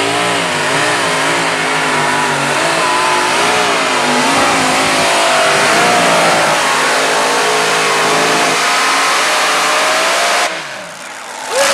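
Modified pulling tractor's supercharged engine running flat out under load as it pulls the sled, its pitch wavering up and down. Near the end the engine note drops away sharply.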